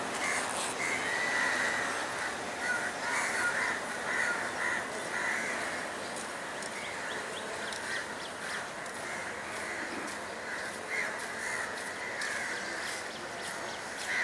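Crows cawing over and over, the calls thickest in the first half and picking up again near the end, over a steady background hiss.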